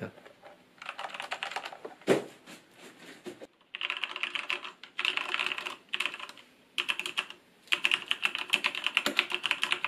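Fast typing on a Corsair K70 RGB Mk.2 Rapidfire mechanical keyboard with Cherry MX Speed Silver linear switches: rapid runs of key clacks in bursts, with a few short pauses and one louder knock about two seconds in.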